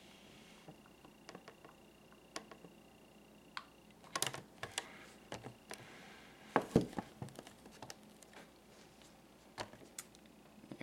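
Scattered small clicks, taps and crinkles of a clear plastic blister pack being pressed and held down by hand onto its cardboard backing while the glue sets, with two busier clusters about four and seven seconds in. A faint steady high tone sounds through the first four seconds.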